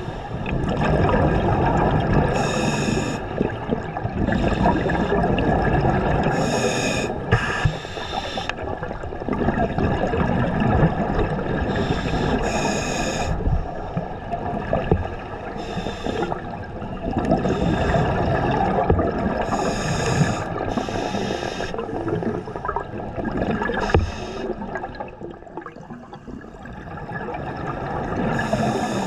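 Scuba diver breathing through a regulator underwater: a short hiss of inhalation every few seconds, with bubbling exhalations in between.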